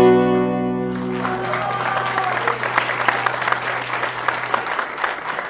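The last chord of a plucked string instrument rings out, and about a second in an audience breaks into applause with a few voices calling out, the clapping starting to fade near the end.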